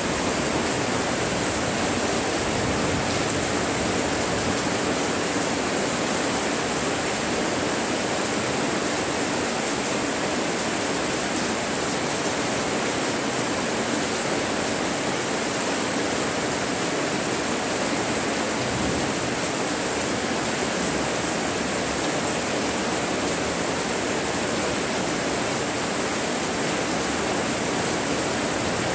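Steady monsoon rain, a dense even hiss without breaks, with a thin high steady tone over it.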